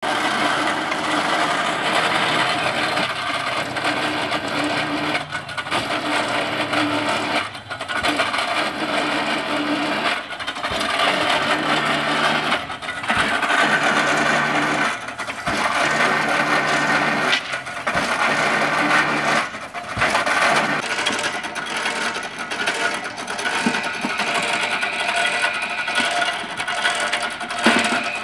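Motor-driven pile-rammer rig running: its winch hauls the rammer weight up the mast and lets it drop into a bored pile hole to compact the bottom, in a cycle repeating about every two and a half seconds. A steady machine hum breaks off at each drop, over a metallic rattle.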